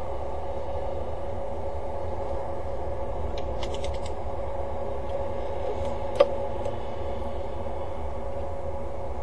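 Steady mechanical hum with a thin steady tone and a low rumble underneath. A quick run of small clicks comes about three and a half seconds in, and one sharp click just after six seconds.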